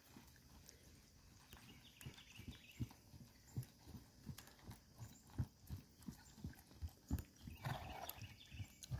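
Hoofbeats of a horse trotting in harness on grass turf: a rhythm of dull thuds that grows louder from about two seconds in as the horse comes closer.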